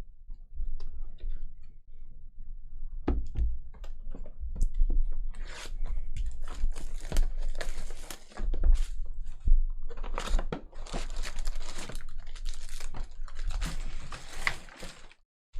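Foil trading-card packs being torn open and handled: wrapper crinkling and tearing, with scattered clicks and taps as the cards are pulled out and flicked through. The crinkling is densest in the second half.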